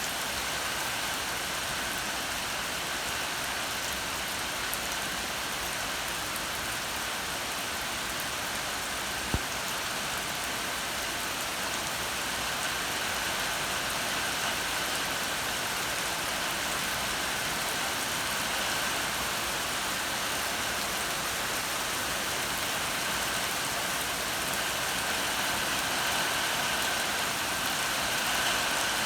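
Steady, even rain falling, with one sharp tick about nine seconds in.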